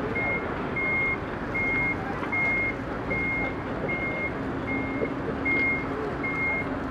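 Reversing alarm of a van backing up: a single high beep repeated evenly about every three-quarters of a second, over steady background noise.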